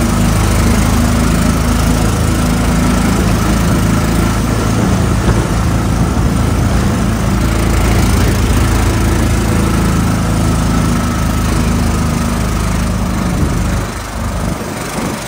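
Small engine of an open-sided tourist vehicle running steadily as it drives along, a constant low engine hum. It gets quieter near the end.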